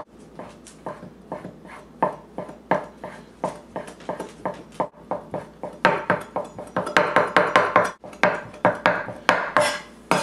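Chef's knife chopping slices of bread into fine crumbs: quick repeated knife strikes, growing louder and faster about six seconds in.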